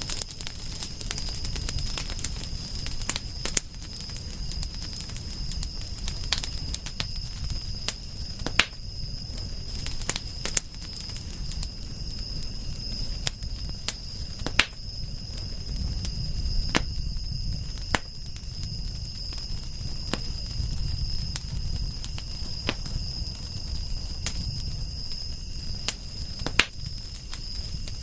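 Campfire burning, with irregular sharp crackles and pops from the wood over a low steady rumble of the flames. A thin, steady high-pitched tone runs underneath.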